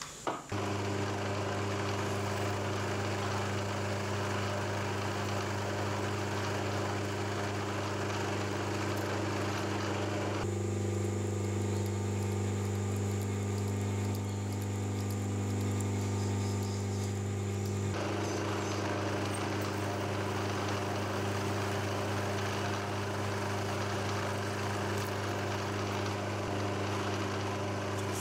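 Milling machine spindle motor switched on and running steadily while a small twist drill drills holes in an aluminium part. For several seconds in the middle the tone of the running machine changes, then goes back.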